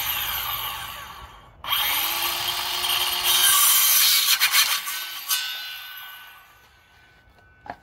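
Ryobi cordless circular saw cutting through a wooden board: a short run that stops briefly about a second and a half in, then a longer cut. After about five seconds the blade spins down and fades away.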